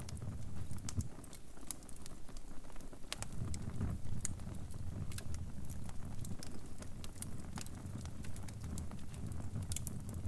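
Crackling wood fire: a steady low rumble with irregular sharp pops and snaps.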